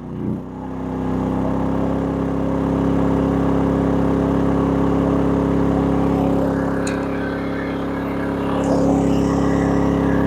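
A second 13,500 BTU RV rooftop air conditioner with a soft start comes online, joining the first unit. A steady mechanical hum builds quickly over the first second or two and then holds, as the inverter generator takes on the full load of both ACs and the refrigerator. There is a short click about seven seconds in.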